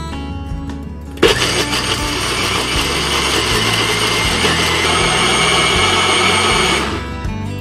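A single-serve blender's motor starts abruptly about a second in and runs with a steady whir, blending ice cream, milk and cookie crumbs into a shake, then cuts off shortly before the end. Acoustic guitar music plays underneath.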